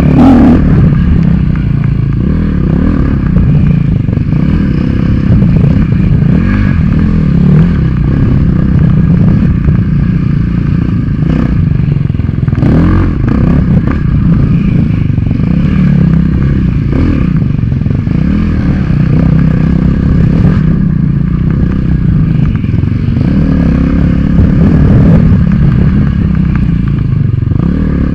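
KTM dirt bike engine running hard under load, the revs rising and falling as the rider works the throttle along a rough trail, heard from on the bike, with rattling and knocks from the bike over the terrain.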